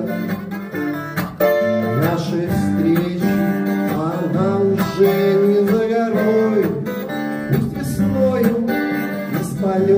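Strummed twelve-string acoustic guitar, with a man's voice singing over it.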